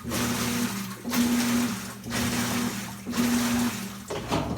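Maytag MVWX500XW2 top-load washer agitating with water in the tub: the drive motor hums in strokes of about a second, briefly pausing and changing pitch as it reverses, over sloshing water.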